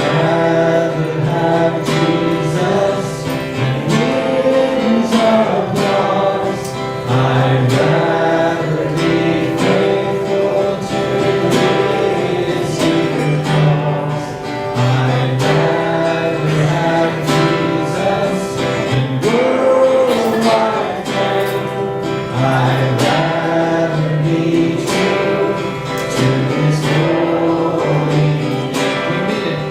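Gospel-style worship music: voices singing over a strummed acoustic guitar.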